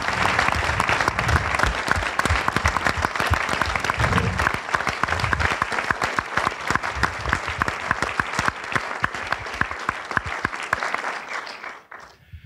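Audience applauding: a dense, steady clapping that thins out and dies away near the end.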